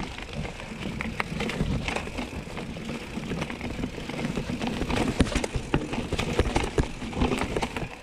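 Mountain bike rattling and knocking over a rough dirt trail: irregular clatters throughout over a steady low rumble.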